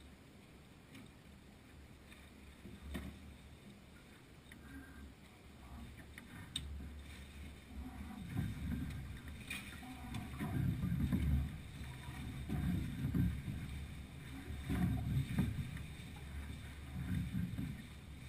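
Sailing yacht moving through the water: uneven low wash and lapping of water along the hull, louder from about eight seconds in, with a few faint clicks.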